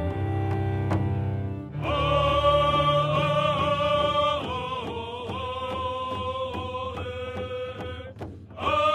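Low cello music, then about two seconds in, men's voices break into a chanted song with long held notes over steady beats on hide hand drums. The singing pauses briefly near the end and comes back in.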